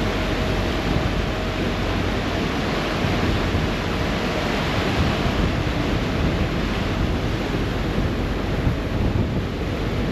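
Ferry under way, heard from the stern: a steady rush of churning wake water and wind on the microphone, over a low, even drone from the engines.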